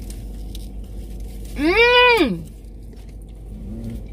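A woman hums "mmm" with her mouth full, tasting vegan pizza: one long hum that rises and falls in pitch about a second and a half in, and a short faint one near the end, over a steady low hum.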